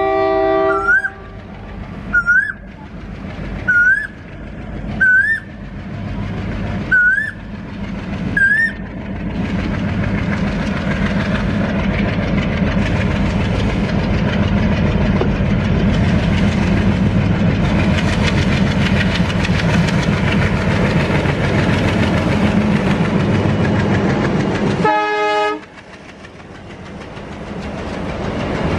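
Multi-tone air horn of an Alco WDG3A diesel locomotive sounding a held chord that stops about a second in, followed by seven short rising chirps. The locomotive's engine and wheels then build into a loud, steady rumble with clickety-clack as it hauls a double-stack container train past. A brief horn blast comes near the end.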